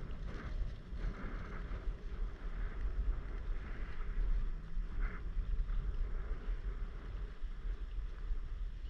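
Strong wind buffeting the microphone with a gusting low rumble, over water lapping at a stand-up paddleboard.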